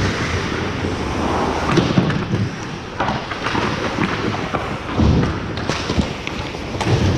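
Ice hockey play on a rink: a steady rushing noise of skating and play on the ice, broken by several sharp thuds at irregular intervals.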